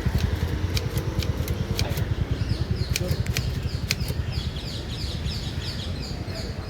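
Manual typewriter keys striking in irregular sharp clicks for the first few seconds, over a steady low rumble. From about two and a half seconds in, a bird chirps quickly and repeatedly.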